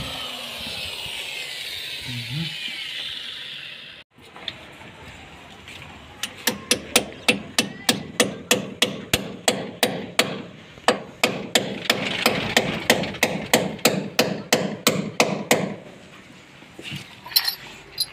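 A power drill whirring and dying away over the first few seconds. Then a hammer strikes metal in a steady run of sharp, ringing blows, about three a second, for roughly ten seconds.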